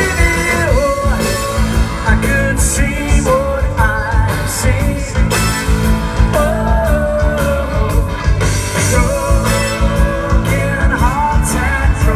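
Live rock band playing: a male lead singer over electric guitars and a steady drum beat.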